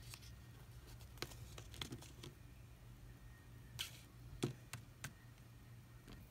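A strip of printer paper being folded and creased by hand against a wooden table: faint crinkles and a few light taps, the sharpest about four and a half seconds in, over a steady low hum.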